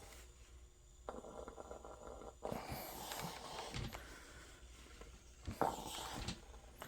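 A clothes iron being pressed and slid over a paper towel laid on a fabric patch: rustling and scraping, with a sharp knock about five and a half seconds in.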